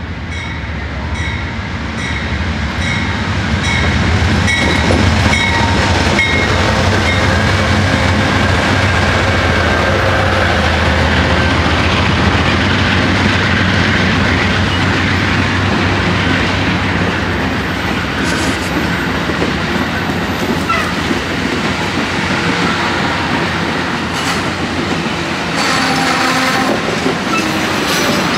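Amtrak GE P42DC diesel locomotive passing close at speed, its engine drone swelling over the first few seconds, followed by the steady rush and wheel clatter of Superliner bilevel passenger cars going by on the rails.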